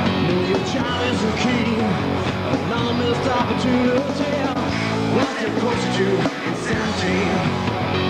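Rock song with singing over guitars.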